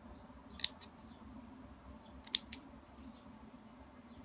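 Small scissors snipping the tails of a cloth ribbon bow twice, each snip a pair of quick sharp clicks, the second about a second and a half after the first.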